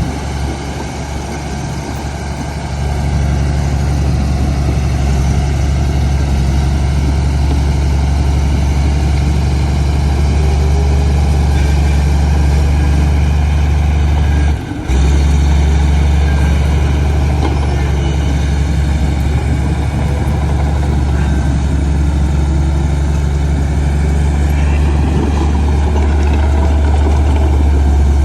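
Heavy diesel engine running steadily with a deep, even hum. The sound cuts out for a moment about halfway through.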